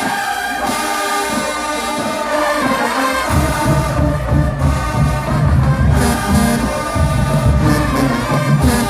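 College marching band brass section playing held chords; about three seconds in a heavy, pulsing low part comes in under them.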